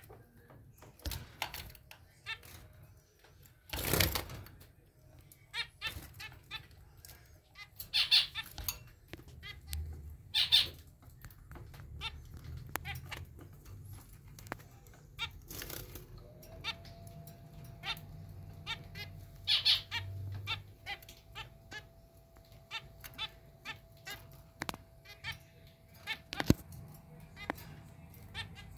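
Zebra finches calling: a busy run of short, nasal, bleat-like calls and chirps, with louder bouts of calling every few seconds. A brief burst of noise about four seconds in.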